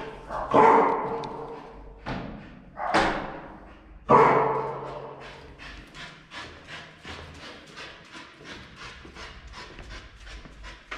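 An old Australian cattle dog barking about four times, each bark echoing in a tiled hallway, then a quick, regular patter of short, soft sounds, about three or four a second.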